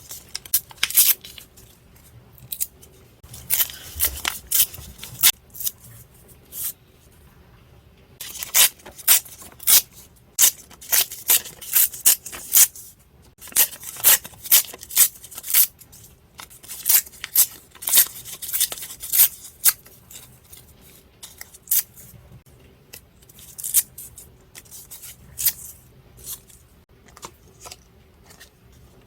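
Scissors snipping paper in runs of quick cuts, with short pauses between the runs.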